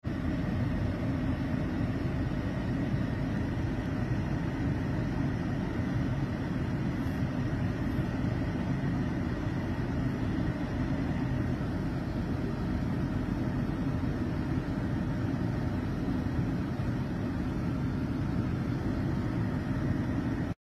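Steady low rumble of outdoor street noise around a burning jeep, an even roar with no distinct bangs, and it does not change.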